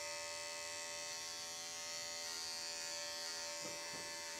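Electric dog-grooming clippers running steadily at a constant pitch as they trim the fur on a dog's hind foot.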